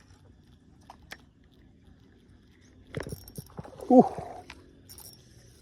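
A few sharp clicks and rustling, then a short voiced exclamation, the loudest sound, about four seconds in.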